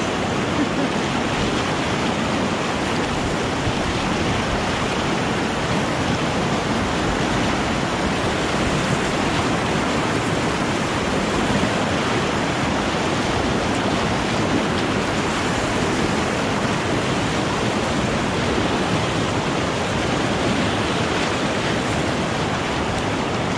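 River whitewater rapids rushing steadily and loudly, heard close up from a kayak at water level, with waves splashing against the boat.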